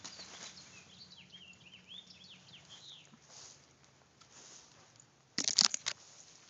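Small birds chirping in quick, high calls for the first few seconds. About five and a half seconds in comes a short, loud burst of rustling and crackling as the conifer's branches and needles are pushed about.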